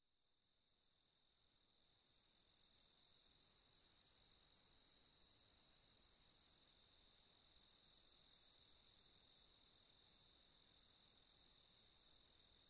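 Faint crickets chirping in dry grass, an even high-pitched pulse about three times a second, fading in over the first few seconds.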